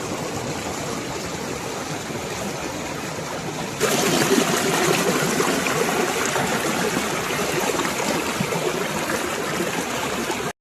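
Running water of a stream: a steady rushing trickle. It jumps louder about four seconds in and cuts off suddenly near the end.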